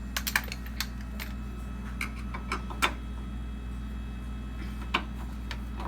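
Scattered light clicks and ticks of a part being worked at and handled during reassembly, with two sharper knocks about three and five seconds in.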